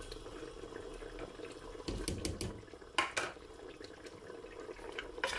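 Aloo gosht curry simmering in an open aluminium pressure cooker: a steady bubbling hiss, with a few sharp little clicks about three seconds in.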